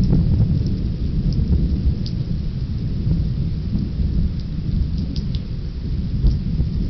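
Thunder rumbling steadily through a rainstorm, with scattered raindrops ticking now and then, heard through a security camera's microphone.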